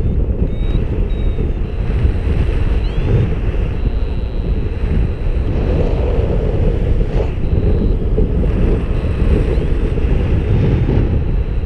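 Wind buffeting the camera's microphone in flight under a paraglider wing: a loud, steady rush with no breaks. Faint short high beeps and chirps come and go over it.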